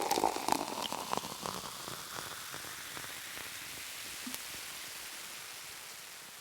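Water pouring into a glass. Splashes and drips in the first second or so give way to a soft, even hiss that slowly fades out.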